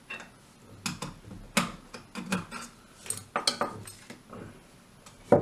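Sharp metallic clicks and knocks of a pin punch and steel shotgun parts being worked while pushing out the trigger assembly pins of an H&R Pardner Pump shotgun, with the loudest knock near the end.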